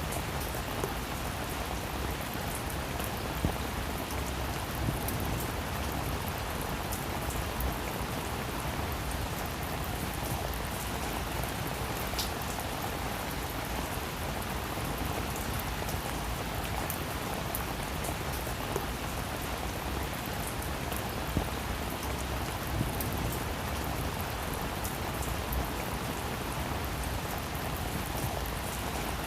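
Heavy rain falling steadily, a dense even hiss with many individual drops pattering, a few of them louder.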